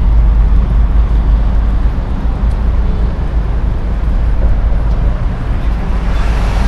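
Steady, loud low rumble of a running motor vehicle with road noise; a brighter hiss rises near the end.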